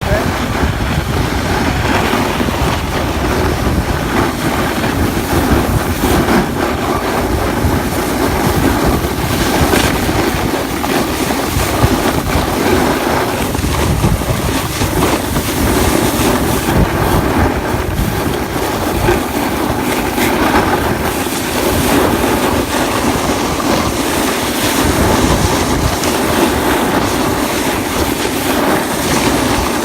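Wind rushing over the camera microphone mixed with a snowboard sliding and scraping across snow during a continuous run.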